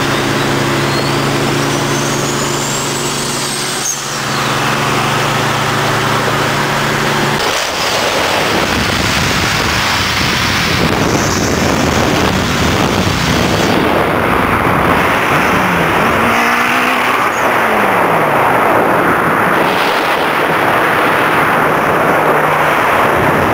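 Two sports cars running side by side at highway speed, heard from inside one of them. For the first several seconds there is a steady engine drone. It then gives way to a loud rush of wind and road noise mixed with engine sound, with a few short rising and falling pitch sweeps near the middle.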